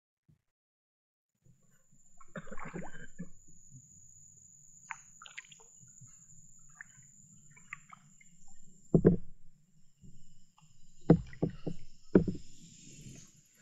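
Kayak paddle strokes: the blades dipping and splashing in the water, with a quick run of sharp strokes near the end.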